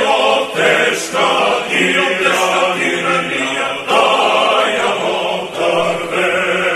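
A choir singing, with short breaks between sung phrases.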